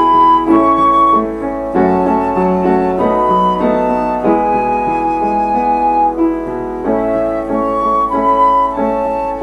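Background instrumental music: a slow melody of held notes that change about once a second over a sustained accompaniment.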